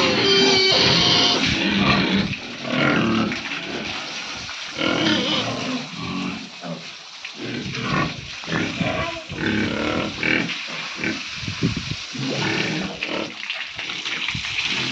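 Several farm pigs calling in short, irregular bursts, one after another, loudest near the start.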